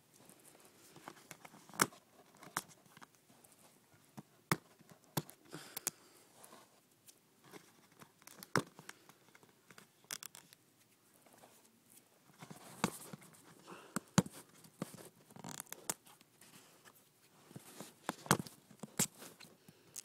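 Fingers picking and peeling at the plastic wrap and seal strip on a Blu-ray case: irregular sharp clicks and crinkles with short scraping tears.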